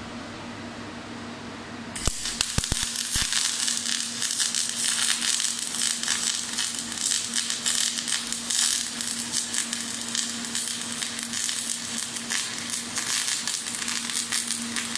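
MIG (gas-shielded wire) welding arc from a Power Mig 500 welder crackling and sputtering steadily as a bead is laid, with the voltage turned up. It starts abruptly about two seconds in, over a steady low hum.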